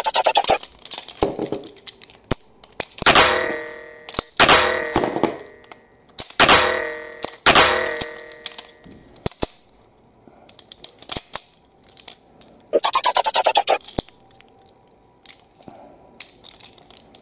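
Hard plastic toy blocks clicking and snapping together on their magnets as a toy engine is assembled, with four loud ringing dings in the first half and a quick rattling run of clicks later on.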